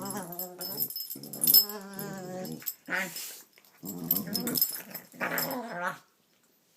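Dog making drawn-out, wavering growling and whining vocalizations in several bouts, stopping about six seconds in.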